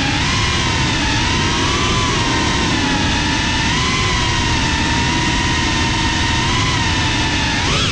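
FPV quadcopter's brushless motors and propellers whining steadily over a rush of air, heard from the camera on the drone itself. The pitch wavers gently with the throttle and jumps up sharply near the end.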